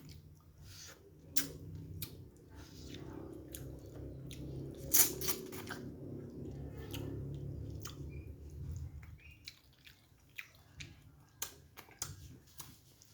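Close-up chewing of snapper head meat, with wet mouth clicks and smacks and one sharp louder click about five seconds in. The chewing thins out to scattered clicks after about nine seconds.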